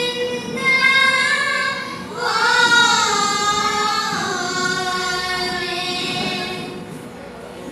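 A group of girls singing an Assamese borgeet together in long, held, gliding notes, over a harmonium sustaining a steady note. The phrase eases off near the end.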